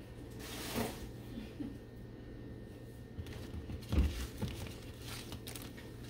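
Paper and packaging crinkling and rustling as the coffee maker's instruction manual is pulled out, with a soft thump about four seconds in.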